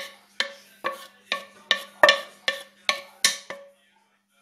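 Wooden spoon knocking against a non-stick frying pan about twice a second, nine sharp knocks each with a short metallic ring, to get the last of the egg and asparagus mixture out of the pan. The knocking stops about three and a half seconds in.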